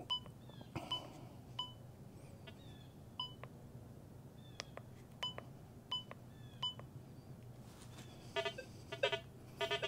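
Rutus Versa metal detector's control box beeping as its keypad buttons are pressed to change settings, about seven short beeps spread over several seconds. Near the end come a few buzzier tones from the detector.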